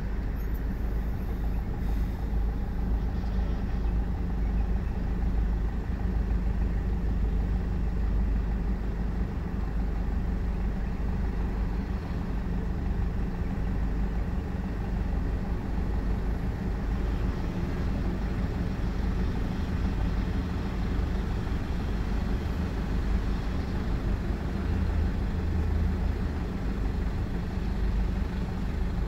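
Steady low hum of a car's engine and running gear heard from inside the cabin, with no change in pitch or level.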